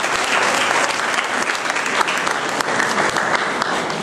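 Audience applauding, the clapping beginning to die down near the end.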